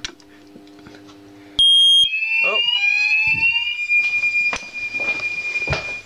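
A sudden, very loud, high alarm beep about one and a half seconds in, followed at once by fire alarm sounders: rising sweeping tones over a steady high tone that carries on. The Gent Xenex fire alarm system has gone into alarm just as a detector is tested.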